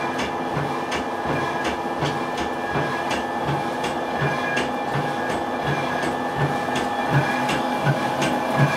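Machinery of a traditional walnut-oil mill running steadily, with a hum and a regular clack about twice a second.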